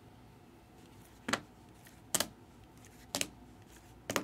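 Hard plastic card holders clacking against each other as cased cards are flipped one at a time off a stack: four short sharp clicks, about one a second.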